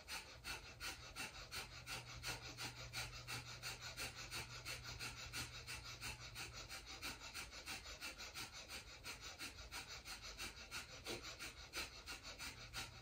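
Faint kapalabhati (breath of fire) breathing: quick, forceful puffs of breath out through the nose in a steady rhythm of about two to three a second, with passive inhales between.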